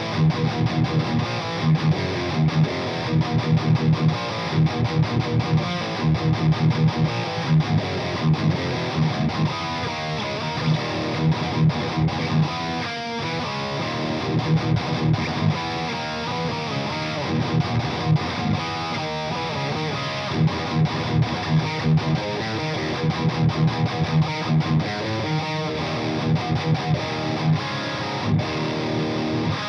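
High-gain distorted electric guitar playing thrash riffs with fast, rhythmic chugs: an ESP LTD JM-II with Monty's Bethnal Green pickups, tuned to E flat, boosted by a Boss OD-200 into a Fryette Deliverance amp.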